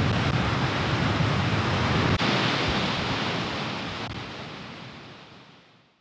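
Steady rushing noise of Skógafoss waterfall, with low wind rumble on the microphone for the first two seconds. The sound fades out gradually over the last three seconds.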